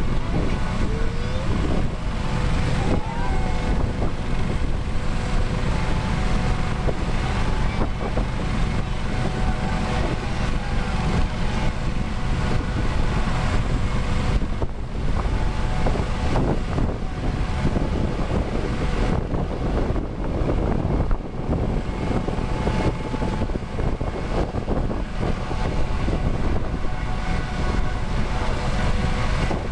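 Airbus AS365 N3 Dauphin helicopter's twin Turbomeca Arriel 2C turboshaft engines running steadily on the ground, with a constant turbine whine over a heavy rumble. This is a ground engine run to check the aircraft after preventive maintenance.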